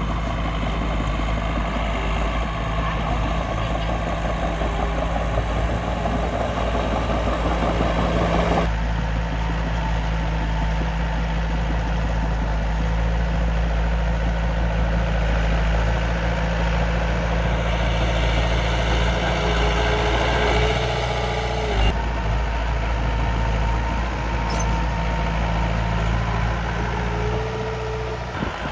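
Miniature dump truck and bulldozer machines running steadily with an engine-like hum, with a short motor whine now and then. The sound changes abruptly twice.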